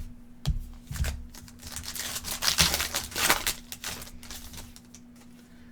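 Trading cards and their foil pack wrapper being handled: a run of small clicks and crinkles, busiest in the middle, over a faint steady hum.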